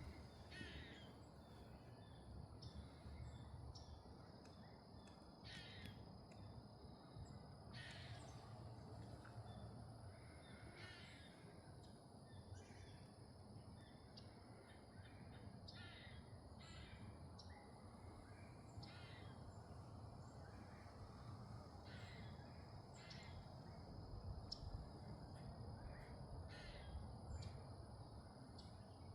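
Faint bird calls: short, harsh calls repeated every second or two, over a low steady background rumble.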